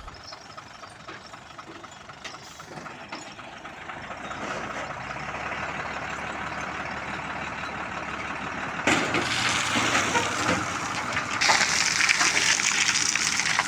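Heavy diesel construction vehicle running, getting louder from about four seconds in. A harsher, hissing rush comes in suddenly about nine seconds in and grows louder near the end.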